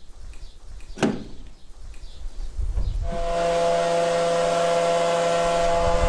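A sharp click about a second in, then, from about halfway, a fuel pump and nozzle refuelling a tractor: a steady, loud hum of several fixed tones over a rushing hiss of fuel flowing into the tank.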